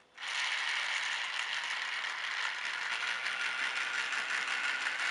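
Battery-powered toy train switched on about a quarter second in, its small motor and gears running with a steady, fast rattle as it pulls three carriages along plastic track.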